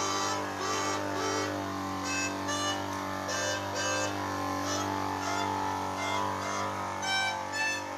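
Melodica played with air supplied through its hose by a small electric air compressor instead of the player's breath: a quick run of short reed notes over a steady low motor hum.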